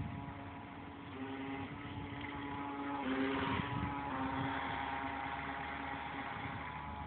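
Radio-controlled model speedboat's motor whining steadily at speed, its pitch shifting a little, over the hiss of its wake. It is loudest around three seconds in as the boat passes close by.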